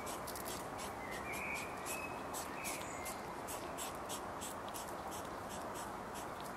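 Outdoor evening ambience: insects chirping in quick, uneven pulses, about three or four a second, over a steady background hiss, with a few faint short bird calls in the first half.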